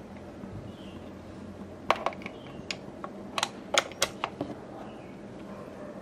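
A plastic plug being fitted into a power-strip socket: a quick cluster of sharp clicks and rattles over about two and a half seconds, over a steady low hum.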